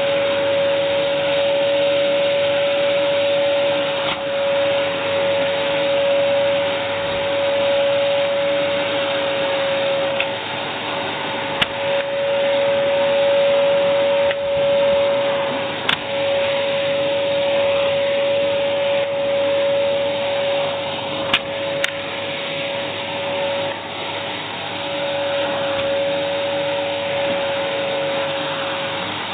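AEG Airmax AMM6216 2100 W cylinder vacuum cleaner running: a steady rush of air with a constant motor whine, broken by a few sharp clicks.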